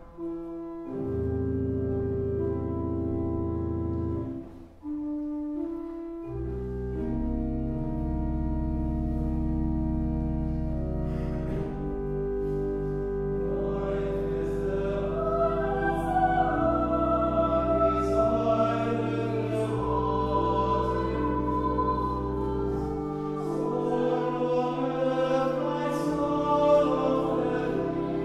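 Pipe organ holding sustained chords over a deep pedal note, with brief breaks near the start and around five seconds in; from about twelve seconds in, choir voices enter and sing over the organ.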